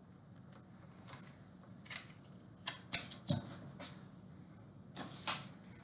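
Faint rustling and a handful of light taps and clicks of a paper card being handled and put up on a whiteboard.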